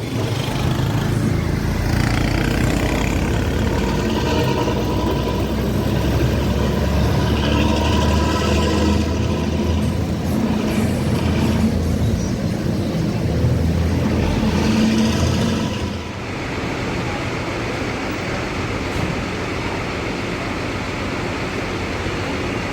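Bus diesel engine on a Nissan CB chassis pulling hard through a racing exhaust with a deep 'ngorok' (snoring, growling) note, its pitch shifting with the throttle. About 16 seconds in it eases off to a steadier, quieter run.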